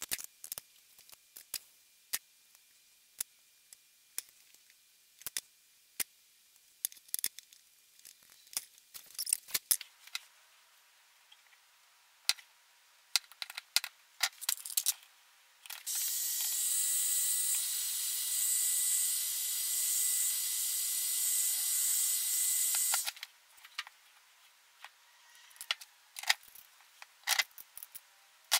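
Small clicks and taps of hand tools and metal cable fittings being handled while a welding cable's connector is fitted. Past the middle comes a steady hiss lasting about seven seconds that cuts off sharply.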